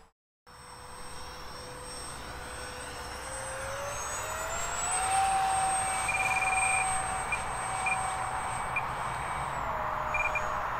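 Whine of the electric ducted fans of a radio-controlled Avro Vulcan model jet in flight. The pitch rises about four seconds in as the fans speed up, holds, then drops back near the end, over a steady rush of air.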